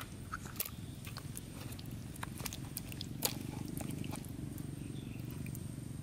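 Wet mud squelching and small sharp clicks as a plastic toy wheel loader is handled in a basin of thick mud, over a steady low rumble.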